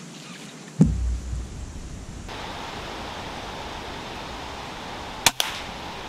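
A Weihrauch HW100KT .22 PCP air rifle fires once about five seconds in: a sharp double crack, the muzzle report and then the pellet striking a split second later, over a steady hiss. About a second in there is a separate loud thump with a short low rumble.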